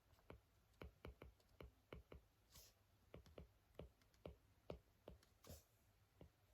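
Quiet writing sounds: a pen tip making irregular light taps, two or three a second, with two short scratchy strokes about two and a half and five and a half seconds in.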